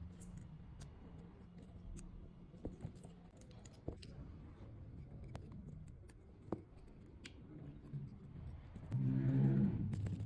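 Light metallic clicks and taps of small parts being handled, over a low steady hum. About nine seconds in, a louder steady pitched buzz begins.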